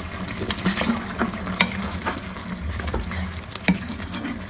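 A watery mince, rice and mung-bean mixture sizzling and bubbling in a metal cooking pot just after water has been added, with a few sharp clicks against the pot.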